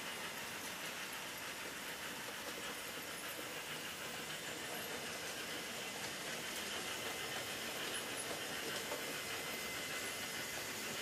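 HO-scale model trains running on a layout: a steady whir of small electric motors and wheels rolling on the track, a little louder in the second half.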